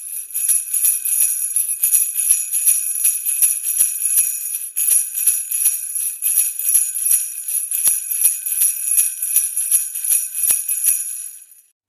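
Sleigh bells shaken in a steady rhythm, about two and a half shakes a second, as a Christmas transition effect; they stop abruptly near the end.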